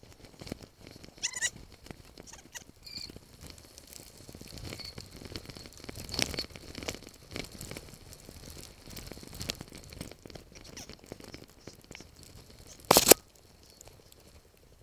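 Mountain bike rattling and clattering as it descends a rough dirt forest trail, with a short high squeak about a second in and one loud knock near the end.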